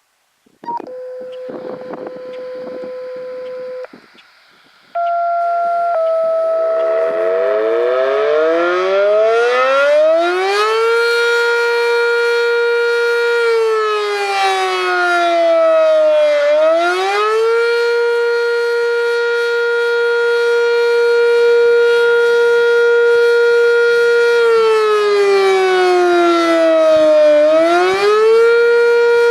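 Two steady alert tones over a radio, then the Sentry 10V electromechanical fire siren winds up to a steady high tone, holds it, sags in pitch as it coasts down, and winds back up, twice over.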